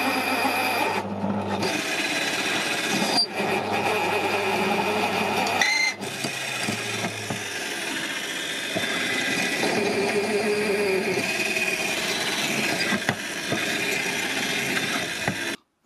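Parkside PTBMOD 710 B2 bench pillar drill running at 500 rpm, driving a 12 mm bit into 12 mm steel without a pilot hole; the motor slows quite a bit under the load. The sound cuts off suddenly near the end.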